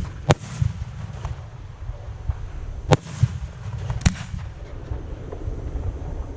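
Fireworks display: three sharp bangs of shells bursting, one just after the start and two more about three and four seconds in, with fainter cracks between them over a low rumble.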